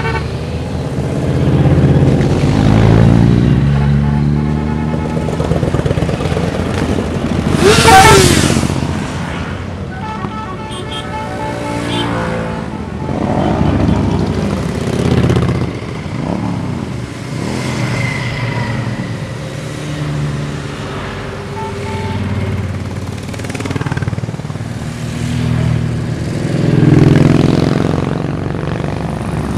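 A procession of touring, cruiser and sport motorcycles riding past one after another. Each engine swells as the bike approaches and falls away, its pitch dropping as it goes by. The loudest pass comes about eight seconds in.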